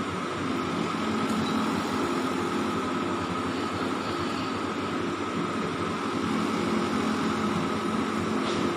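Steady mechanical hum with a few constant low tones and a higher whine, unchanging throughout.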